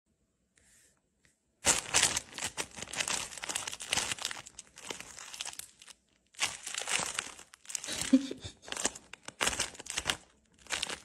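Clear plastic bag crinkling around a kitten inside it, in irregular bursts that start about two seconds in, with a short pause around six seconds.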